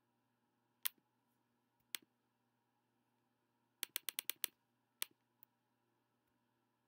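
Sharp clicks of field hockey sticks striking the ball over near silence: single clicks about one and two seconds in, a rapid run of about six around four seconds in, then one more and a faint last one.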